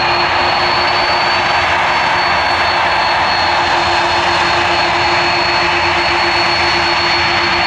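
Airbus A330 turbofan engines running at taxi power: a loud, steady jet rush with a constant high-pitched whine and a lower hum, holding level throughout.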